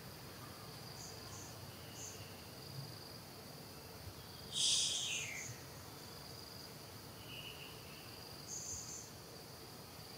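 Insects chirring steadily with high, short, repeated chirps, and one loud, brief, shrill high call about four and a half seconds in that drops in pitch as it ends.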